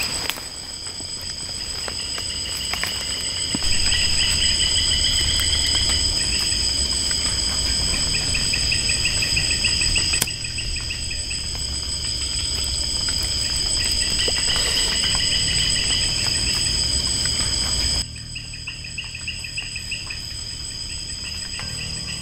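Night chorus of tropical forest insects: two steady, high-pitched buzzing tones with another insect's rapid chirping trills coming and going, over a low rumble. The whole sound drops suddenly in level twice, about ten seconds in and again near the end.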